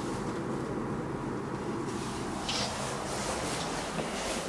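Machine-room-less traction elevator car travelling, a steady ride hum whose pitch falls about halfway through as the car slows for its landing, with a short click near the middle.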